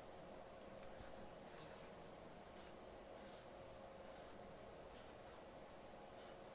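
Felt-tip marker drawing lines on paper: faint short scratchy strokes, about one a second, as a rectangle is drawn.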